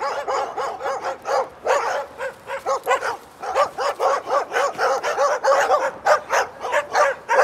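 A pack of several stray dogs barking without a break, their barks overlapping at a few a second: aggressive barking at an approaching dog.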